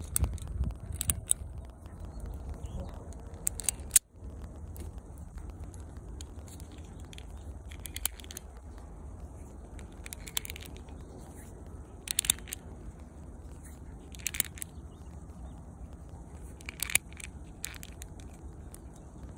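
Small plastic clicks and scrapes from the parts of a tiny Dong San Browning Baby toy airsoft pistol being worked in the fingers, a few seconds apart, with one sharp click about four seconds in. Steady low wind rumble on the microphone underneath.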